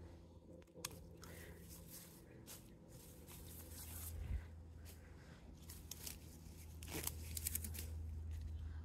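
Hand pruners snipping vitex suckers at a tree's base: faint leaf rustling and a few light clicks and snaps of stems, with a quick cluster of them near the end, over a steady low hum.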